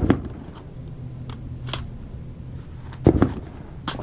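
A firearm being handled during a magazine change: a sharp knock at the start, a heavier thump about three seconds in and a short click near the end.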